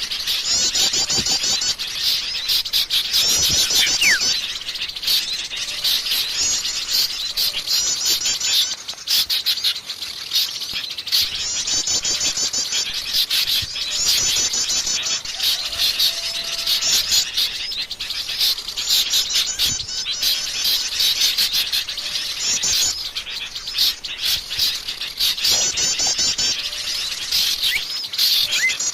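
Wild forest birds singing: short phrases of rapid, high chirping notes, repeated every second or two, with an occasional quick falling whistle.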